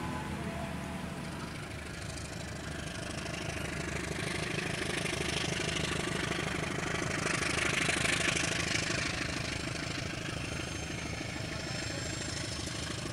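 Diesel locomotive hauling a passenger train, its engine running with a steady low drone as the train pulls away. A rushing noise of the moving train swells in the middle and peaks about eight seconds in, then fades back.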